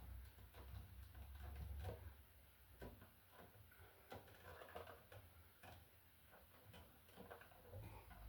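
Faint scattered ticks and small clicks of copper ground wires being handled and a plastic wire nut being twisted onto them, over a low hum.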